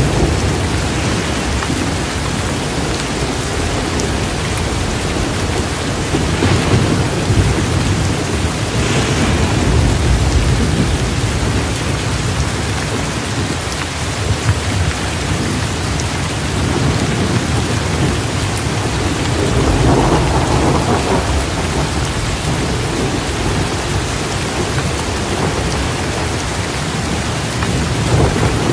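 Steady rain with low rolling thunder underneath, the rumble swelling twice, about a third of the way in and again about two-thirds in.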